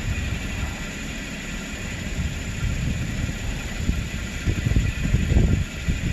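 Toyota Corolla's four-cylinder engine idling, with an uneven low rumble that swells about two-thirds of the way through. The car is being checked for an intermittent cylinder 4 misfire.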